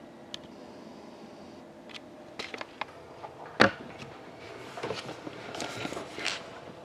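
A sealed hockey card box being handled on a tabletop: a few light clicks, a single sharp knock about three and a half seconds in, then a couple of seconds of rustling as it is picked up.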